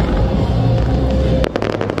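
Fireworks going off over music, with steady low booming and a quick run of sharp crackling bangs about one and a half seconds in.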